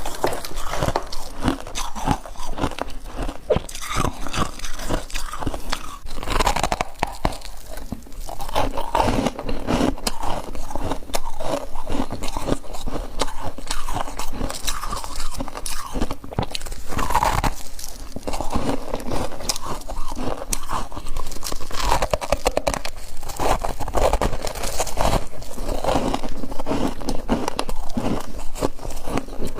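Freezer frost being bitten and chewed close to the microphone: a dense run of crisp crunches and crackles.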